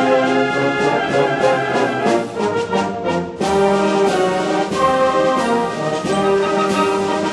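High school concert band playing, with the brass prominent in sustained chords; a new full chord comes in about three and a half seconds in.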